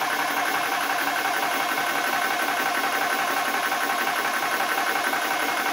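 Nomad 2 portable high-pressure air compressor running steadily with its fan on, its pump charging a PCP air rifle. It makes a fast, even pulsing drone, on a par with a vacuum cleaner.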